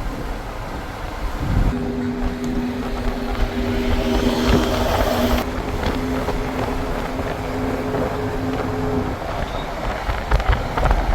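Steady vehicle running noise, heard from inside, with a steady two-tone hum from about two seconds in until about nine seconds in.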